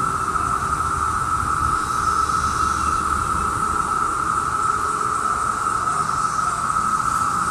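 Chorus of Brood II periodical cicadas (Magicicada): many males singing together in one loud, steady, unbroken drone.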